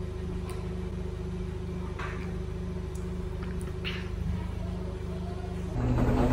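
A steady low hum with a few faint small ticks, stepping up louder about six seconds in.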